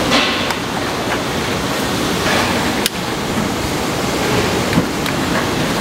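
Steady rushing noise, with one sharp click about three seconds in as a long-neck utility lighter is sparked at a cast-iron ring gas burner.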